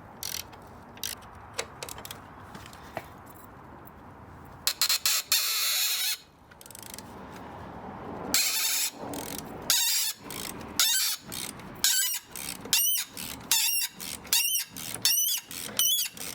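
A hand ratchet working a bolt on a VW Beetle chassis. There are a few light clicks, then a rattling burst about five seconds in. After that comes a run of strokes, each with a short rising-and-falling squeal from the bolt or the tool, coming faster near the end.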